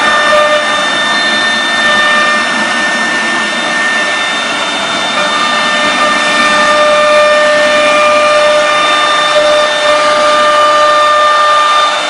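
Air-cooled spindle of a CNC router running, its bit engraving MDF: a loud steady hiss of cutting under a high whine, with a few held whistling tones that fade in and out as the cut goes on.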